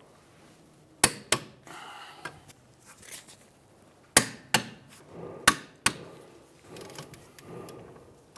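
A torque wrench on a 17 mm socket clicking as the rear hub bolts are torqued to 72 ft-lb in a crisscross pattern. Six sharp, short clicks come in pairs, about a second in and again between four and six seconds in, with faint handling noise between.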